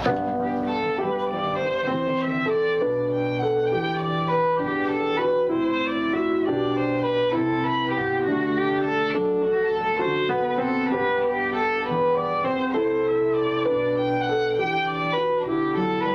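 Violin played with the bow: a continuous melody of held notes, each lasting about half a second to a second before moving to a new pitch, at an even level.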